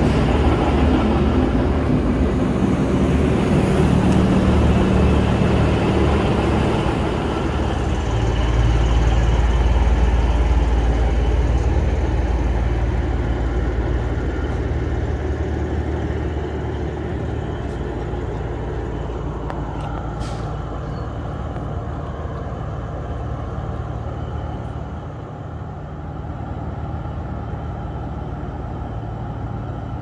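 Underfloor diesel engines of a V/Line VLocity diesel multiple unit running at a standstill: a steady low rumble, heaviest about a third of the way in, then easing. A short hiss of air about two-thirds of the way in.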